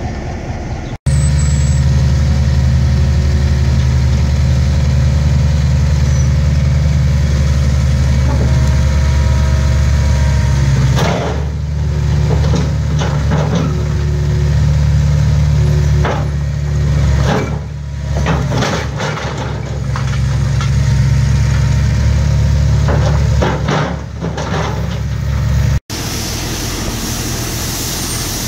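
A John Deere 6675 skid-steer loader's diesel engine runs loud and steady. From about halfway there are repeated metal clanks and scrapes as its bucket works against the old track rails. Near the end the sound cuts to a quieter, steady hiss.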